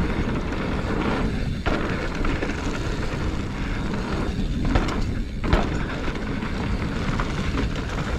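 Steady rush of wind noise on the microphone while a mountain bike is ridden, with a few sharp knocks from the bike over the ground.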